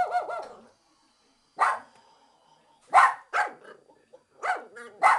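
A Japanese Chin ends a drawn-out, wavering howl, then gives five short, sharp barks, spaced a second or so apart and bunching together near the end.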